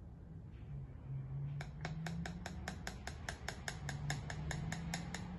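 Hydrogen peroxide pouring from a measuring cup through a funnel into a plastic bottle, glugging as a rapid, even run of small clicks, about six a second, from about a second and a half in.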